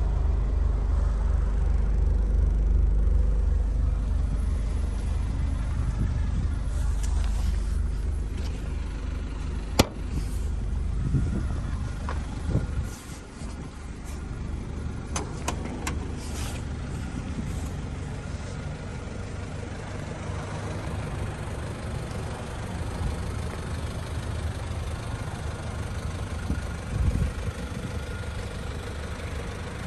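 Nissan QD32ETI 3.2-litre four-cylinder turbo diesel idling with a steady low, pulsing rumble. A door shuts with a single sharp bang about ten seconds in, followed by a few lighter clicks.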